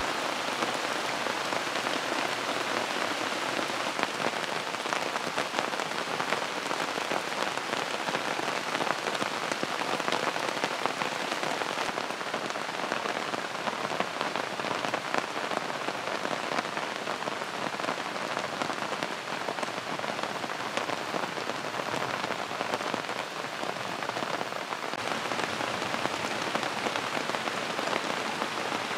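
Steady rain falling, with scattered individual drops tapping.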